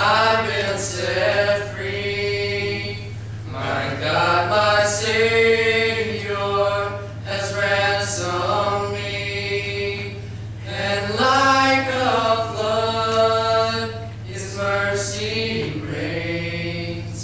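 A small group of young male voices singing together unaccompanied, in phrases of long held notes with short breaths between them. A steady low hum runs underneath.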